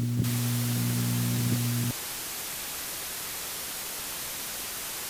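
Even hiss of white-noise static starting just after the beginning, over a steady low electrical hum that cuts off suddenly about two seconds in.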